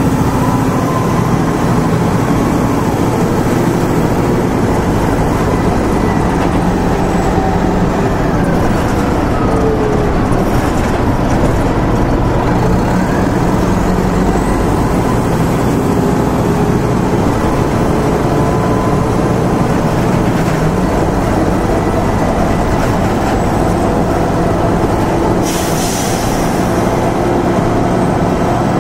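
1996 Nova Bus RTS-06 transit bus heard from on board: its Detroit Diesel Series 50 diesel engine and Allison VR-731 automatic transmission running steadily, with whining tones that rise and fall in pitch. A short hiss of air comes near the end.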